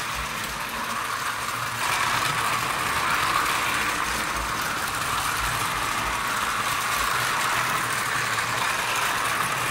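Two knock-off battery-powered Thomas the Tank toy trains running on plastic track: the steady whir of their small electric motors and gearboxes, a little louder from about two seconds in.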